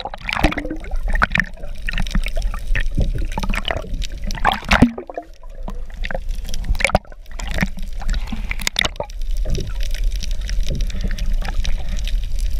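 Seawater gurgling and sloshing around a GoPro held just under the surface, muffled, with many irregular clicks and pops over a steady low rumble.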